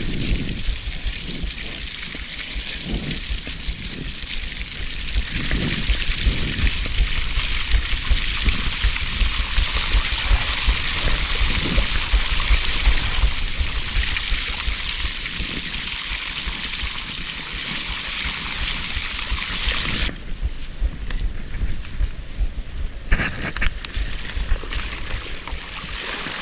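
Mountain bike tyres hissing through waterlogged grass and standing puddles, with a low rumble of wind and bumps on the camera microphone underneath. About twenty seconds in the hiss stops abruptly and a quieter stretch follows.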